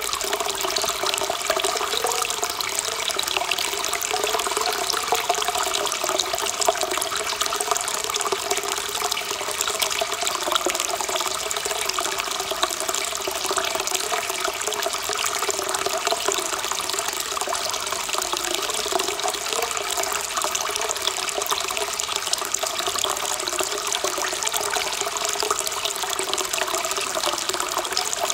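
Hot-spring water pouring steadily from the bath's spout into the pool, a continuous splashing with no breaks.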